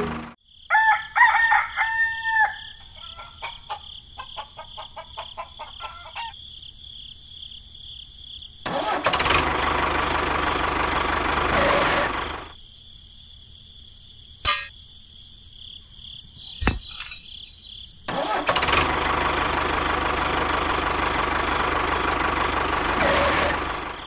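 A rooster crowing once about a second in, followed by a few seconds of short repeated clucks. Later come two long stretches of steady engine-like noise, with two sharp clicks between them.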